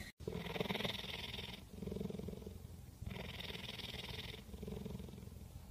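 Cheetah purring close to the microphone, a steady rhythmic purr that alternates between breathing in and breathing out about every second and a half: the sign of a contented cat.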